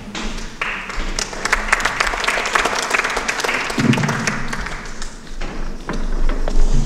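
Audience applauding, the clapping swelling quickly and then thinning out over a few seconds, with a low thump about four seconds in.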